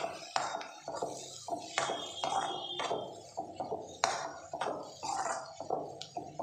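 Metal spatula scraping and clinking against a metal pan as thick fried onion-tomato masala is stirred, in irregular strokes about two a second.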